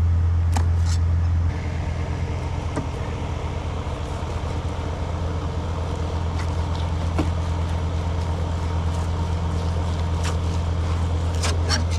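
Steady low mechanical drone, like a motor running, with a slight drop in level about a second and a half in. A few faint clicks sound over it.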